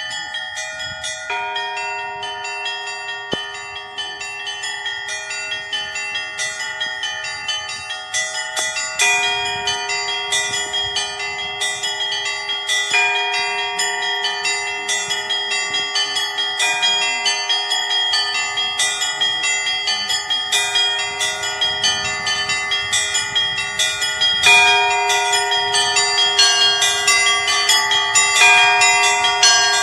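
Russian Orthodox bell ringing from the chapel belfry: small bells struck in quick, dense patterns over a lower bell struck every few seconds, the ringing growing gradually louder.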